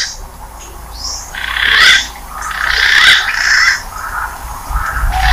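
Green pigeon (punai) calls from a hunting lure recording: a run of short, harsh, rasping notes, the loudest about two and three seconds in.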